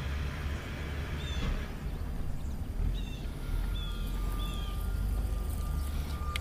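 Electric trolling motor running the small boat, a steady low hum, with a thin steady whine coming in about halfway through. A bird chirps a few times.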